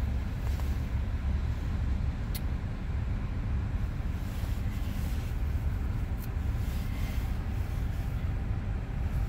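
A Mazda car idling at a standstill, heard from inside the cabin as a steady low rumble.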